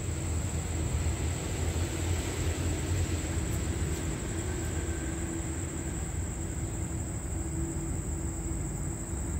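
Diesel locomotive of rapid train 167 running at the station, a steady low rumble with an even hum above it and no sudden changes.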